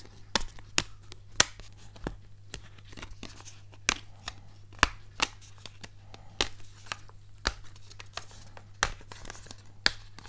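Irregular sharp clicks and clacks of a rigid protective phone case being handled and taken apart into its two halves, hard parts knocking and snapping against each other a few times a second.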